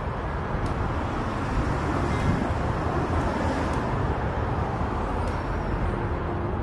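Steady street traffic noise, a continuous wash of passing cars, with a few faint light clicks.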